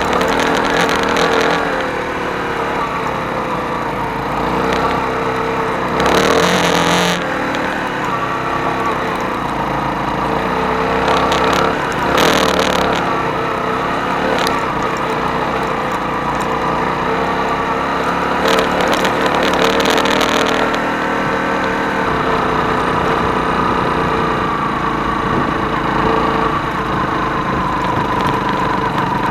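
Hyosung Karion motorcycle engine running steadily under way on a dirt route, its pitch drifting slowly with the throttle, with brief rushes of noise about six and twelve seconds in.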